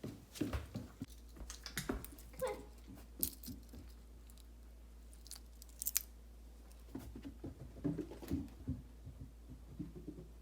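Objects being handled at close range: a run of short clicks, taps and rustles, then a quieter stretch with a couple of sharp clicks, then more handling near the end.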